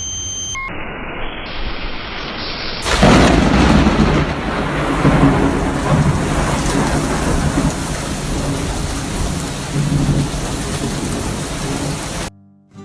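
Heavy rain with thunder; it gets much louder about three seconds in and cuts off abruptly near the end.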